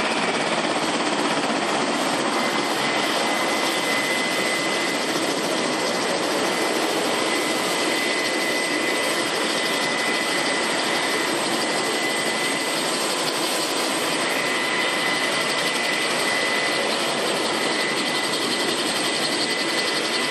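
Sikorsky UH-60 Black Hawk helicopter running on the ground with its rotor turning. Its twin turboshaft engines give a steady, high turbine whine over a constant rushing noise.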